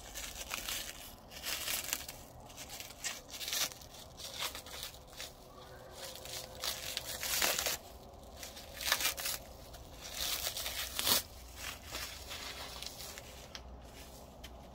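Clear plastic wrapping film being stripped off a new butcher's cleaver and crumpled by gloved hands: irregular crinkling and tearing in bursts, with the loudest crackles about halfway through and again near the end.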